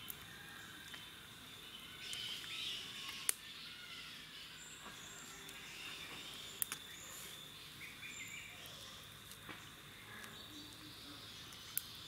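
Faint outdoor ambience: small birds chirping over a steady high-pitched insect drone, with a few sharp clicks scattered through.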